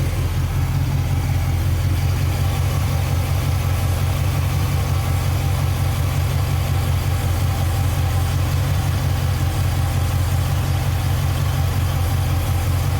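A 1980 Dodge D300's 318 V8 idling steadily, with a deep, even hum. The engine has a torque cam, a two-barrel carburettor and a single 2.5-inch exhaust with a glasspack.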